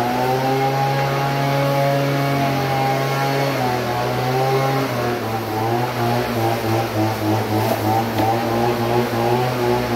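Leaf blower engine running, speeding up just at the start and holding a steady note, then pulsing unevenly from about five seconds in.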